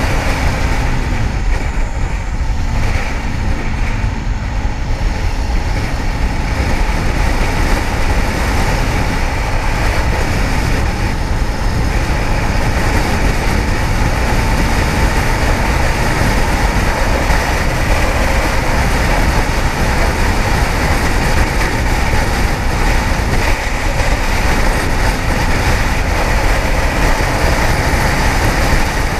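Kawasaki ZX-10R sportbike ridden at a steady speed: a constant rush of wind on the rider's microphone, with the inline-four engine running underneath.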